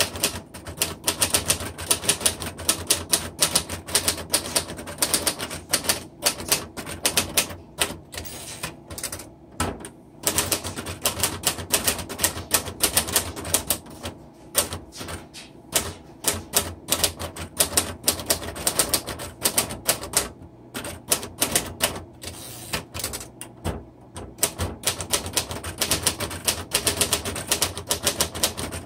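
1961 Royal Tab-O-Matic manual typewriter typed on quickly: a dense, rapid run of key and typebar strikes with a few short pauses.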